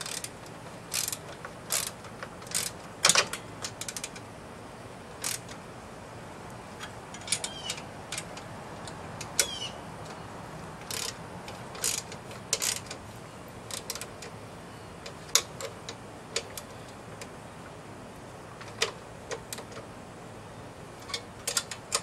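Ratchet wrench clicking in short, irregular runs as the bolts of a reel mower's handle brace are tightened against nuts held with a second wrench.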